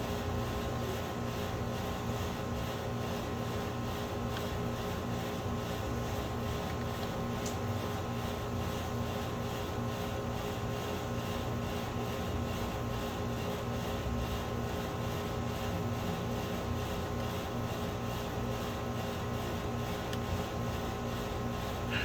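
Steady mechanical hum with several constant tones and no change in level, with a small click near the end.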